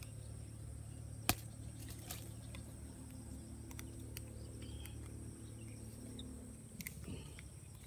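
Faint outdoor ambience: a steady low hum with insects droning high, and one sharp click about a second in.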